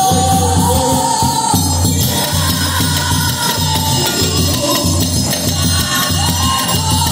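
Live festa junina music from a quadrilha junina's trio: a steady low drum beat under held melody notes.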